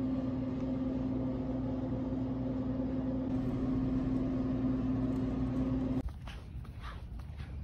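Steady mechanical hum holding one even tone, cutting off about six seconds in. Open outdoor air and light footsteps on a concrete sidewalk follow.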